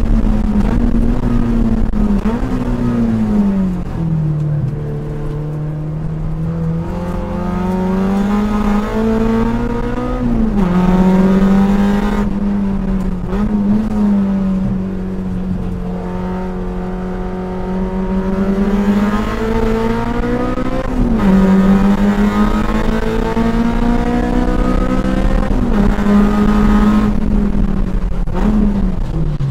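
A track car's engine at hard throttle, heard from inside the cabin: its pitch climbs through the revs and drops sharply at each of several gear changes, then falls steeply at the very end as it comes off the throttle.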